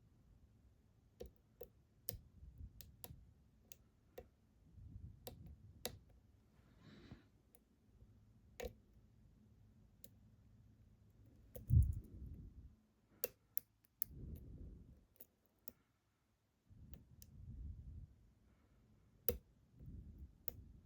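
Irregular small metallic clicks of a lock pick and tension tool working inside a Ruko 600 padlock, with low rubbing sounds from the lock being handled. There is one louder knock about twelve seconds in.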